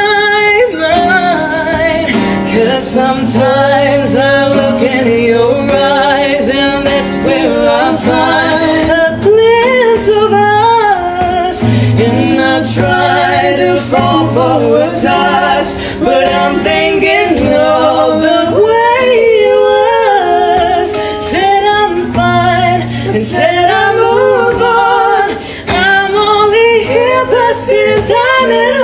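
Live singing with acoustic guitar accompaniment: a voice sings long, sliding notes over strummed guitar chords.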